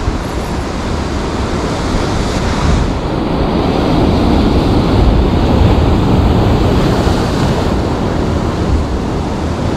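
Sea waves breaking on a rocky shore, whitewater surging and washing over and around the rocks, building to their loudest around the middle.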